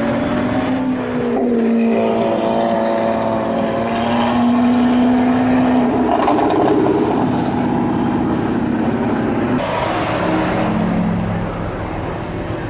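Sports car engines running and revving as cars drive past one after another. One engine note gives way to another about six seconds in and again near ten seconds.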